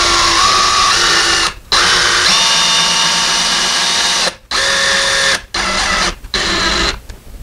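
A DeWalt cordless drill driving a screw through a metal blind bracket into pre-drilled holes in wooden window molding. It runs in about five short bursts with brief pauses between them, and the motor whine shifts pitch from burst to burst.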